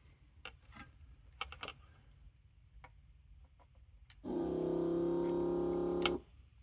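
A few light clicks, then an electric desoldering tool's vacuum pump buzzes steadily for about two seconds before cutting off, sucking molten solder off a potentiometer's joints.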